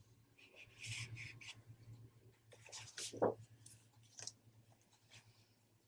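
Faint rustling and sliding of scrapbook paper sheets being handled, in a few short bursts.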